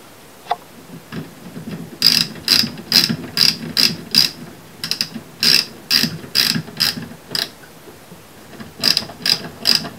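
Ratchet screwdriver clicking in quick repeated strokes as a light switch's mounting screw is driven in. The clicks start about two seconds in, pause for a second or so, then pick up again near the end.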